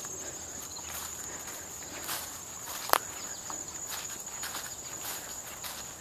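A steady high-pitched insect chorus, with footsteps scuffing on a leaf-covered dirt trail. A single sharp click about halfway through.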